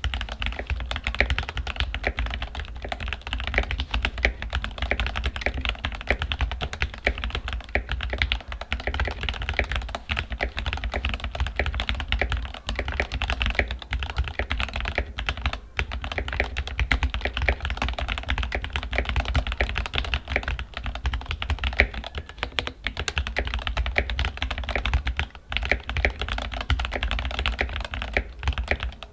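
Keychron K8 Pro mechanical keyboard with Gateron G Pro Red linear switches being typed on continuously at a fast, even pace, a dense stream of key clicks.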